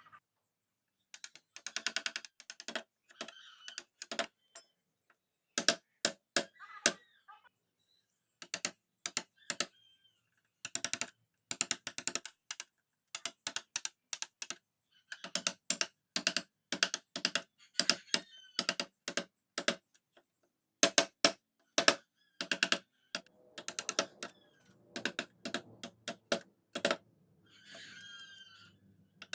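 Mallet tapping a carving chisel into wood, in quick runs of a few sharp knocks separated by short pauses.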